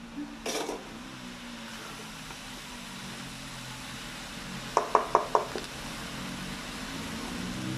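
Spatula stirring sliced jackfruit in a nonstick frying pan, with a short scrape about half a second in, then four quick taps of the spatula on the pan about five seconds in. A steady low hum runs underneath.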